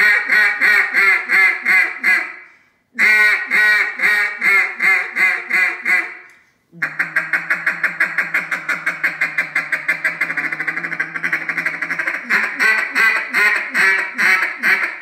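A bocote-wood double-reed duck call blown by mouth in imitation of a mallard hen. It gives two runs of about nine loud quacks each, then a long, fast chatter of about seven notes a second. The chatter slows into spaced quacks that fade near the end.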